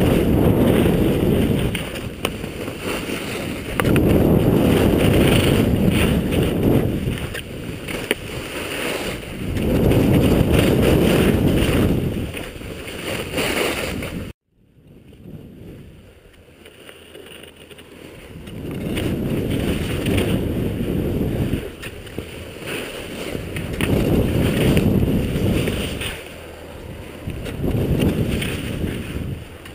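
Wind rushing over the microphone of a skier's head-mounted camera during a downhill run on groomed snow. The noise swells and eases in waves every few seconds, and cuts out abruptly for a moment about halfway through.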